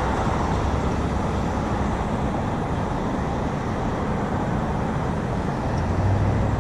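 Steady road traffic: cars driving past on a street. A low engine drone comes in near the end.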